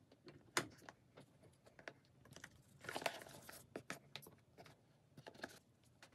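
Faint handling noises: small clicks and taps as a smartwatch's magnetic charging puck and its cable are picked up and moved about, with a sharper tap about half a second in. Around three seconds in comes a denser rustle and scrape as the cardboard box is shifted.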